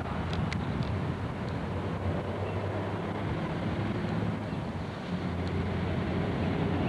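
Steady low rumble of wind buffeting a camcorder microphone outdoors, with a few faint clicks about half a second in.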